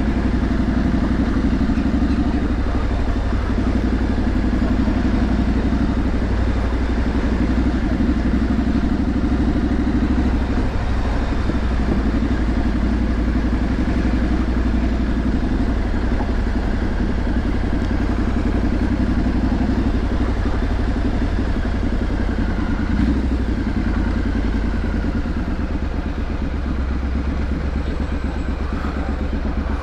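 Triumph Street Scrambler 900's parallel-twin engine running at low revs while riding through town traffic. It is steady, with small rises and falls in throttle and a slight easing near the end.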